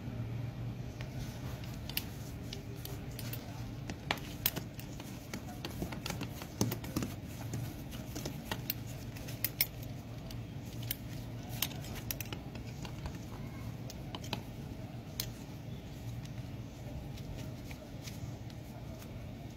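A metal belt buckle and leather belt being handled, giving scattered light clicks and taps over a steady low hum.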